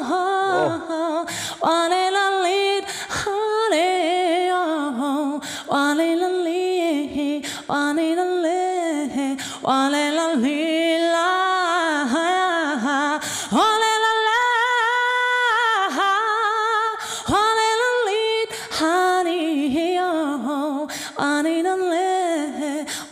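A woman singing unaccompanied into a handheld microphone: phrases of wavering, vibrato-laden notes, with brief breaks between them.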